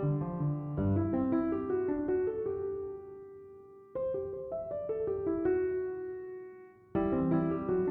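Background piano music: a gentle melody of sustained notes in phrases, each dying away before the next begins, about a second in, at four seconds and near the end.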